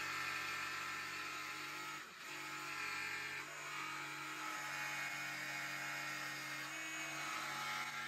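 RIDGID brushless cordless jigsaw running and cutting into a thin wooden board: a steady saw run with a brief dip about two seconds in.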